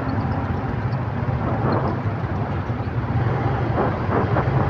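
Riding a motorcycle in dense city traffic: a steady low engine hum with road and traffic noise, no sudden events.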